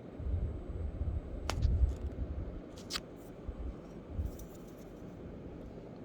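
Unboxing handling noise: dull bumps for the first couple of seconds, loudest about two seconds in, with a few sharp clicks and crinkles of packaging.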